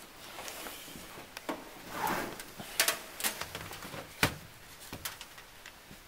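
Handling noise from a multimeter and its test leads being picked up and moved: several sharp clicks and knocks, with a short rustle about two seconds in.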